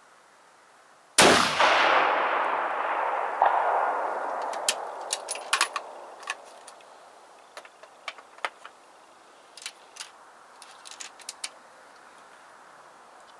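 A single scoped-rifle shot about a second in with a long echoing tail, then about two seconds later a faint ring from the steel gong target hit at 500 metres. After that, a series of sharp metallic clicks as the rifle's bolt is worked to reload.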